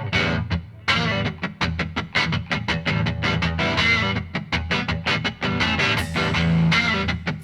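Upbeat background music with guitar over a quick, steady beat.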